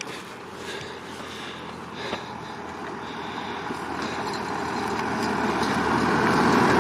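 A car approaching along the road, its engine and tyre noise growing steadily louder as it draws near.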